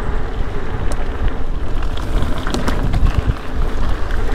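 Ibis Ripmo mountain bike rolling along dry dirt singletrack: a steady rumble of tyres on the dirt, with scattered small clicks and rattles from grit and the bike, and wind rushing over the microphone.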